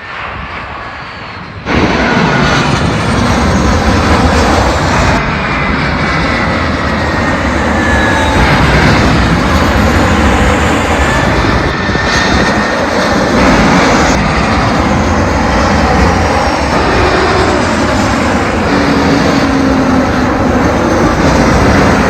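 Jet airliner passing low overhead on its landing approach: loud, steady engine noise with faint whines slowly falling in pitch. It jumps abruptly louder about two seconds in.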